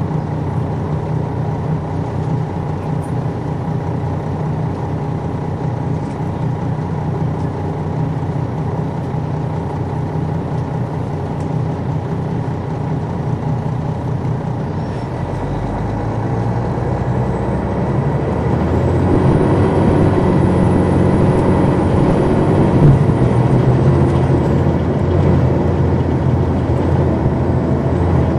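Detroit Diesel Series 60 engine of a 2002 MCI D4000 coach, heard from on board the bus, running steadily and getting louder about halfway through. A faint high whine rises, holds for several seconds and falls away.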